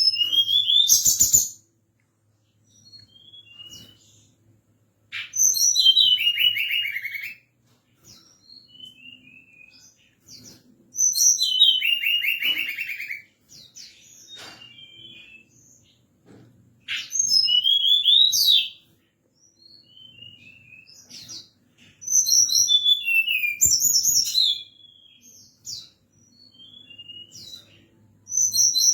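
Tledekan gunung songbird singing: loud two-second phrases of quick, descending whistled notes and trills, repeated about every five to six seconds, with soft scattered calls in between. It is a lure song played to excite other birds of its kind into answering.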